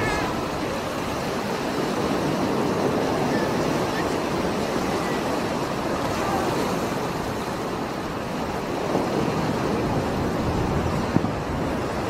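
Rough sea: heavy waves breaking and churning against a rocky shore, a steady rushing of surf.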